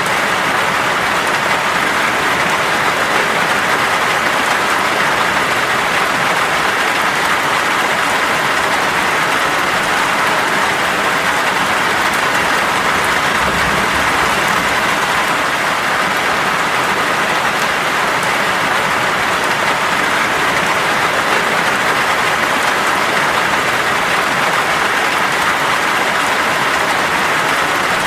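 Heavy rain falling in a steady downpour, a dense, even hiss with no letup. A brief low rumble rises under it about halfway through.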